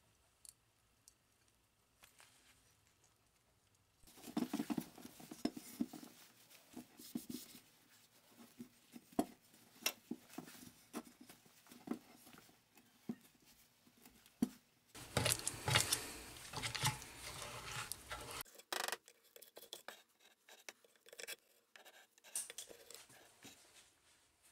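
Gloved hands working on a lawn tractor transaxle: a rag rubbing and wiping the greasy metal housing, with scattered clicks and knocks of the metal parts being handled. The densest, loudest rubbing starts about fifteen seconds in and lasts some three seconds.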